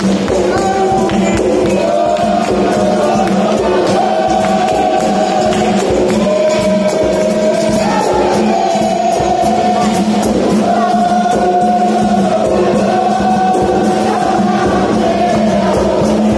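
Capoeira roda music: a group singing a held, stepped melody over berimbaus, pandeiros and an atabaque drum playing a steady rhythm.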